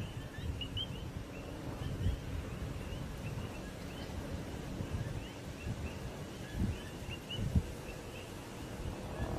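Steady low rumble of a lava fountain erupting from a fissure, with a couple of soft low thumps partway through. Many short, high chirps from small birds are heard over it.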